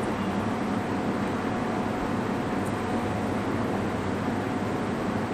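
Steady, even hiss of room background noise, with no distinct events.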